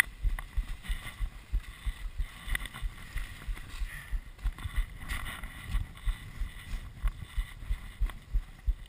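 Muffled low thumps about three times a second over a faint hiss, picked up through a chest-mounted GoPro's housing as a telemark skier moves across snow.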